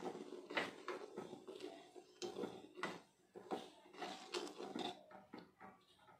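Metal spoon stirring sugar syrup in a stainless-steel saucepan, giving faint, irregular clinks and scrapes against the pan. The clinks stop about five and a half seconds in.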